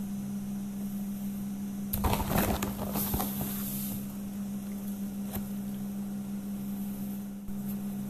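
A steady low hum, with a burst of rattling and scraping strokes about two to three seconds in, from handling the wire-mesh sieve of semolina over the metal griddle.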